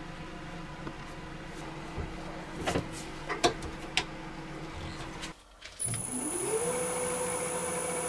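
A few light clicks and knocks, then a wood lathe's motor spinning up with a rising whine that levels off into a steady run.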